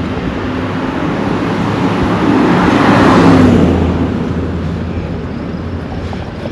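A motor vehicle driving past on an asphalt road: engine hum and tyre noise grow louder to a peak about three seconds in, then fade away.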